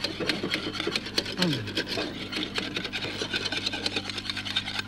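Wire whisk beating a thick egg-yolk béchamel in a copper saucepan: quick scraping strokes of the wires against the pan, several a second.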